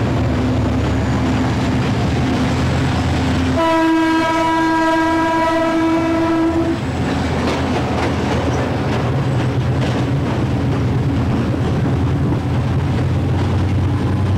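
GT22 diesel locomotive running steadily under way, with one horn blast about three seconds long beginning a few seconds in, sounded on the approach to a level crossing.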